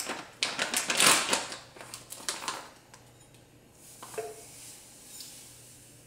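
Plastic pouch of granulated allulose sweetener crinkling and crackling as it is pulled open, loudest in the first couple of seconds. Then quieter: a light knock and a faint hiss as the sweetener is tipped into a measuring cup.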